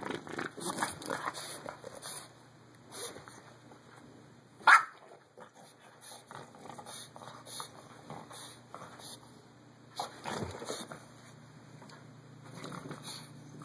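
Bulldog puppy tussling with a towel, making irregular bursts of dog noises and fabric scuffling, with one short, sharp, loud bark about a third of the way through and another flurry of noises about ten seconds in.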